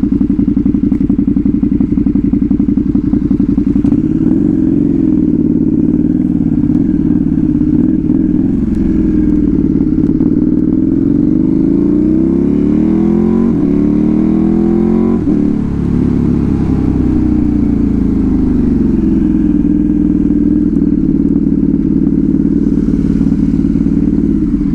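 Motorcycle with a loud exhaust running under the rider, holding a steady note at first, then revving up over about five seconds before the pitch drops sharply about fifteen seconds in, and settling back to a steady note.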